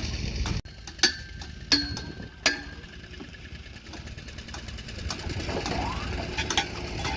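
A low engine runs briefly and cuts off abruptly. Then a hard metal tool strikes three times about 0.7 s apart, each a sharp clink that rings briefly, followed by a few fainter taps.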